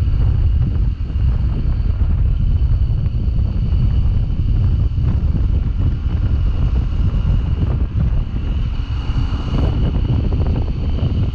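Steady low wind rumble buffeting the action camera's microphone while riding a Sinnis Terrain 125 motorcycle, with the bike running underneath.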